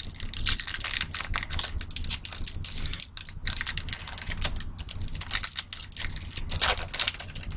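Foil wrapper of a trading-card pack being torn open and crinkled by hand: a rapid, irregular run of crackles, with a louder crackle near the end.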